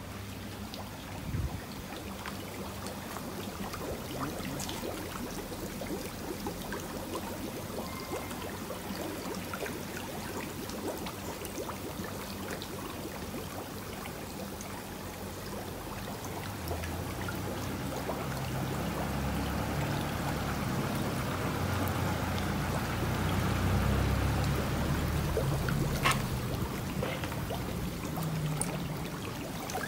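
Water running and trickling steadily, growing louder over the second half, with a single sharp click near the end.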